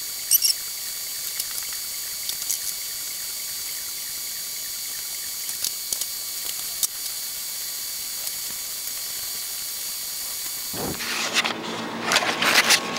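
Steady high hiss of background noise with a few faint clicks. About eleven seconds in, a thump, then rustling and knocks of the camera being picked up and handled.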